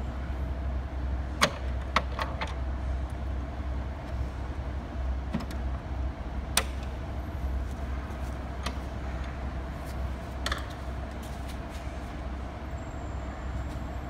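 Scattered sharp clicks and knocks from LED display cabinets being handled, their locks and frames clicking, over a steady low hum.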